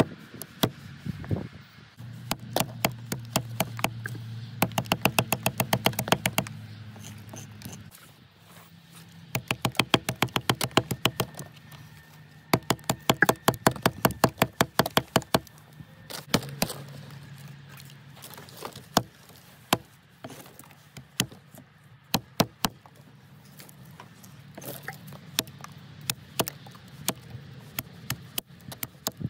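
Fiskars hatchet chopping into a green sapling stick on a wooden chopping block, in quick runs of light knocks, several a second, with pauses between, as a point is carved for a tent stake.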